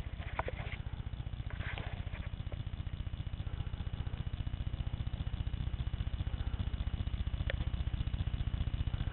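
An engine running steadily with a low, even pulse that does not rise or fall, and a few light clicks scattered over it.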